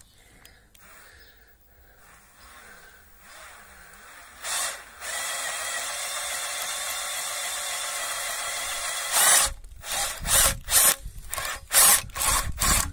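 Electric drill spinning a 14 mm spade bit through the wall of a black plastic irrigation pipe, boring the hole for a valve fitting. A short burst about four seconds in, a steady run of a few seconds, then a string of short, loud bursts near the end.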